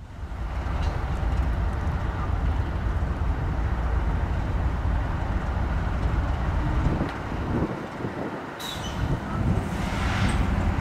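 Two Norfolk Southern diesel-electric locomotives running light, their engines giving a steady low rumble as they approach on the track. The rumble dips briefly about eight seconds in, then builds again as they draw nearer.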